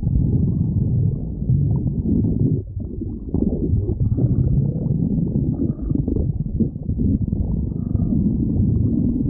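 A person's stomach growling: continuous low rumbling with irregular gurgles, easing briefly about two and a half seconds in before picking up again.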